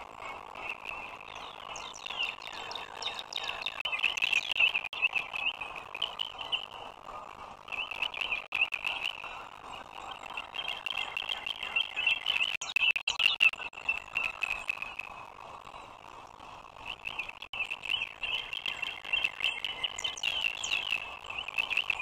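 High, rapid chirping trills that come in runs of one to three seconds with short pauses, over a steady hiss and scattered soft clicks.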